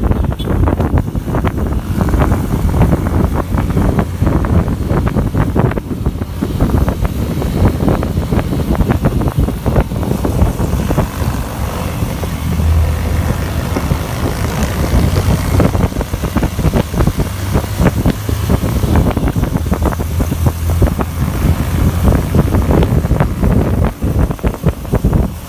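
Wind buffeting the microphone on a moving motorcycle, with the bike's engine and road noise rumbling underneath. It is loud and continuous, with rapid irregular knocks from the gusting.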